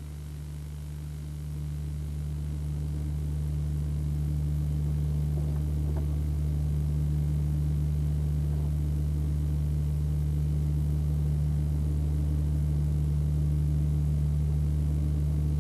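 Fishing boat's diesel engine running steadily, a low drone that grows a little louder over the first few seconds.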